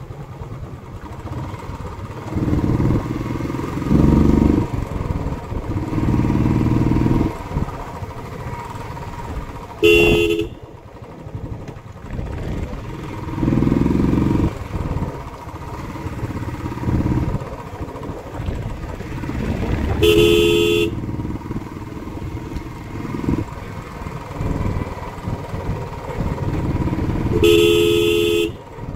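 Royal Enfield Classic 350's single-cylinder engine running on the move, pulling harder in stretches and easing off between them. The horn sounds three times: a short beep about a third of the way in, then two longer honks of about a second later on.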